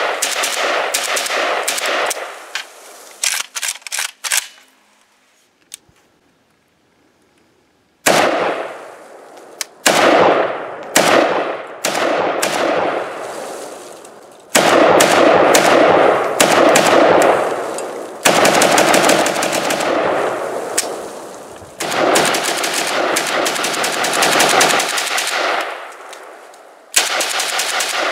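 AKM-type rifle in 7.62x39 firing rapid strings of semi-automatic shots, each crack followed by a short echo. The shooting breaks off about four seconds in, with a few seconds of quiet, then resumes in fast strings.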